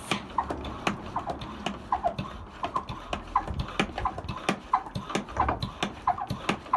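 Hand pump of a Streetwise portable pressure washer being worked up and down to pressurise its tank, squeaking and knocking about twice a second with each stroke.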